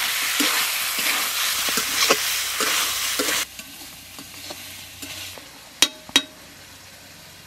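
Chicken pieces in spice paste sizzling loudly in a metal kadai while a metal spatula scrapes and stirs them, the meat just salted to draw out its water. About three and a half seconds in the sizzle drops suddenly to a quieter hiss, and near the end come two sharp clinks in quick succession.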